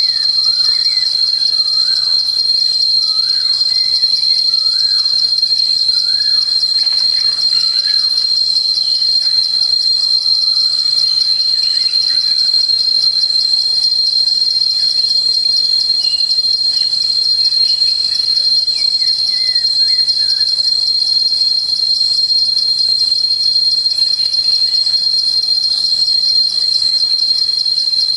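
A steady, high-pitched insect drone, one unbroken tone. Faint bird calls sit beneath it: a short rising-and-falling phrase repeated several times in the first eight seconds, and a few scattered chirps later.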